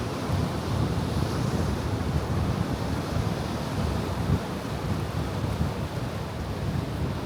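Ocean surf washing steadily, with wind buffeting the microphone as a low rumble.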